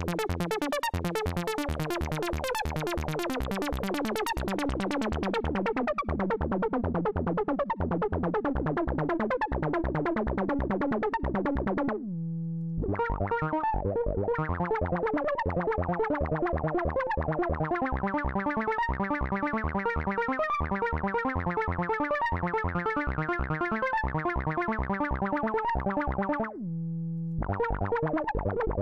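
Fast arpeggiated synth line from Ableton's Operator played through a FabFilter Volcano 3 resonant filter. The treble dies away over the first few seconds as the filter closes. The pattern stops twice, about twelve and twenty-six seconds in, each time leaving a brief held low tone before the notes start again.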